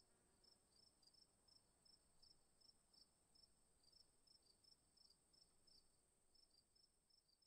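Near silence, with very faint high chirps repeating two or three times a second.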